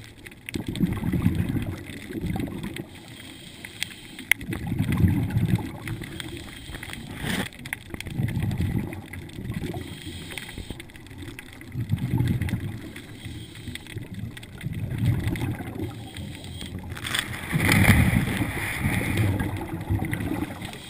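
Scuba diver's regulator breathing underwater: exhaled bubbles rumbling out in bursts about every three to four seconds, the last one louder.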